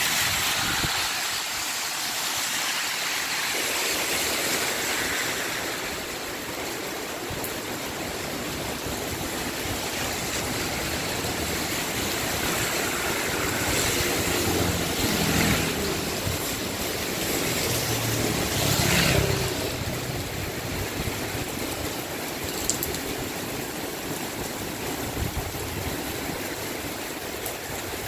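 Heavy rain pouring onto a street and pavement, a steady hiss. Cars drive past on the wet road midway through, tyres swishing through water with their engines running, the loudest pass a little past the middle.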